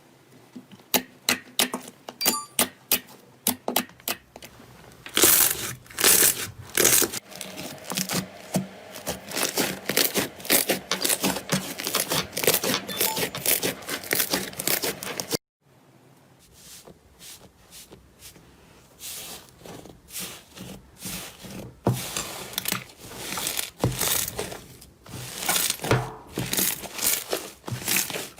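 Slime being squeezed and worked by hand, giving rapid crackling and popping clicks. The sound stops dead about halfway through and similar crackling slime play starts again.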